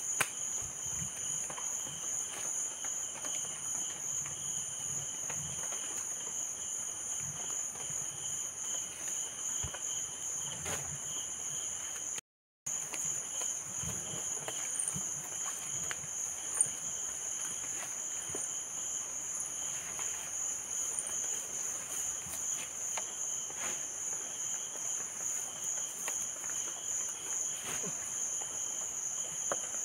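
Steady chorus of insects, a continuous high pulsing trill with a fainter lower band, over faint rustling in the grass. The sound briefly cuts out about twelve seconds in.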